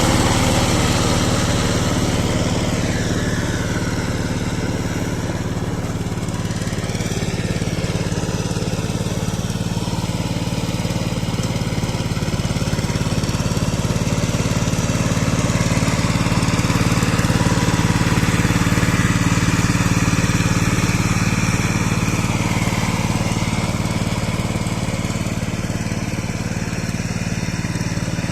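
Power tiller engine running steadily and evenly, its level rising and falling only slightly.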